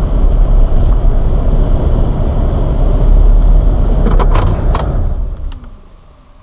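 Chevrolet pickup truck driving fast over a sandy dirt track, heard from inside the cab: a heavy, steady rumble of road and engine noise, with a short burst of rattles and knocks about four seconds in as the truck jolts. The rumble dies away about five seconds in as the truck slows to a stop.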